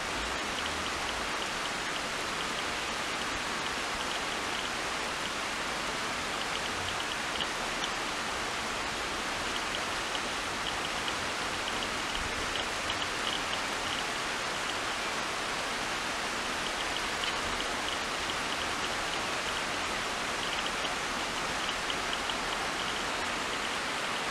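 Steady, even hiss of outdoor background noise, with faint runs of quick, high ticking notes coming and going every few seconds.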